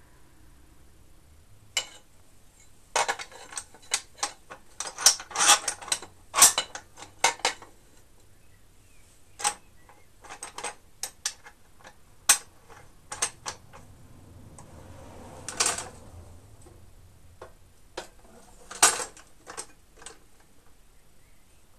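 Sharp metallic clicks and knocks from a chop saw's vise being worked by hand and a metal plate being set in it; the saw motor is not running. A quick run of clicks comes in the first third, then scattered single clicks, with a short scrape near the middle.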